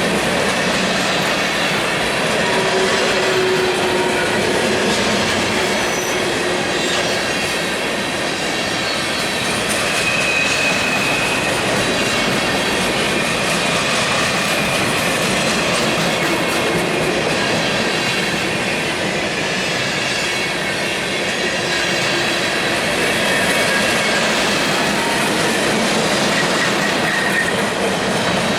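Empty freight cars rolling past steadily, wheels clattering on the rails, with faint squeals from the wheels coming and going.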